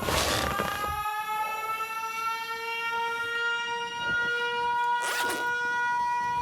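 Air-raid siren wailing at a steady pitch after winding up, beginning to wind down near the end. A loud burst of noise comes as it reaches pitch at the start, and shorter noisy swishes come about four and five seconds in.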